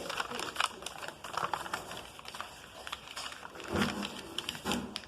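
A sheet of paper being handled and folded by hand, with a run of small crisp crackles and clicks as it is creased, and two louder, duller thuds near the end.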